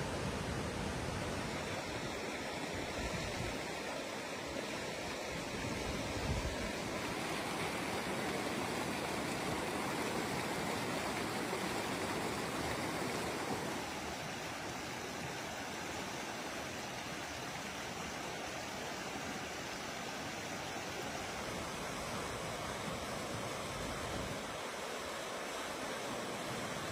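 Flood-swollen river rushing over rocks: a steady noise of fast water. Its tone shifts slightly where the shot changes, about 7 and 14 seconds in.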